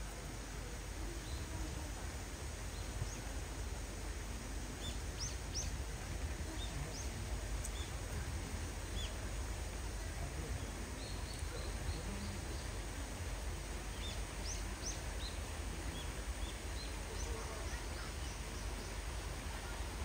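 Steady outdoor background noise with a low rumble, and small birds giving short high chirps now and then, in a quick run of them about halfway through.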